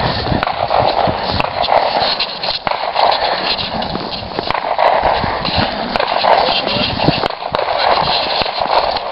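Footsteps crunching through light snow and dry grass in an uneven walking rhythm, with crackling and rustling close to the microphone.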